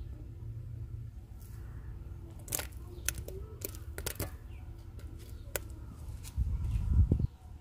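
Kitchen handling sounds as sliced banana is added to an aluminium pot of custard: several sharp clicks and taps between about two and a half and five and a half seconds in, over a steady low hum. A short low rumble about six and a half seconds in is the loudest sound.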